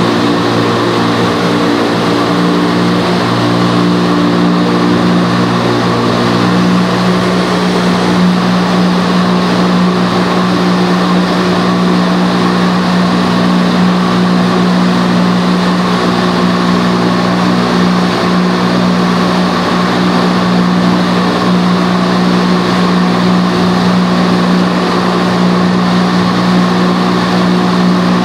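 Vertical indoor skydiving wind tunnel running: the loud, steady hum of its big fans under the rush of the air column blowing up through the flight chamber, the hum's tone shifting slightly about six seconds in.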